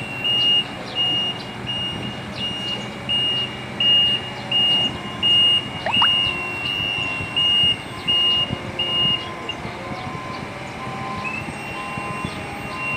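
Magni telehandler's reversing alarm beeping at a steady rate, a little under two beeps a second, over the machine's running engine. The beeping stops about nine and a half seconds in, and fainter, lower beeps carry on.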